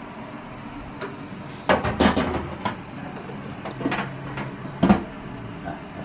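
Knocks and clatter of a glass microwave turntable plate being fitted into a microwave oven: a cluster of sharp knocks about two seconds in, and a few more single knocks later.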